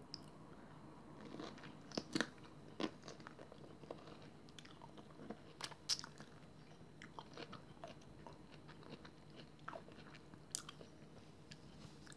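Faint close-up sounds of a person biting and chewing a ripe peach: scattered soft clicks and wet mouth noises.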